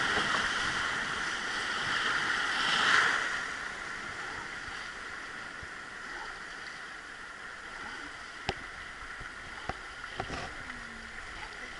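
River water rushing around a wooden rowed river boat as it runs a rapid, loud for the first few seconds and then dying down to a quieter steady wash as the boat reaches calmer water. A few sharp knocks come in the second half.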